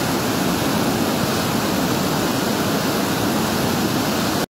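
The Isère in flood after days of rain, a swollen mountain torrent of turbulent whitewater rushing under a bridge: a loud, steady roar of water that cuts off abruptly at the very end.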